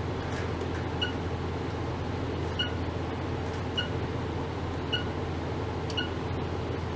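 Ultrasonic probes driven by a function generator in pulsed and swept oscillation give a steady electrical hum and hiss. A short, high two-tone beep repeats about every second and a bit.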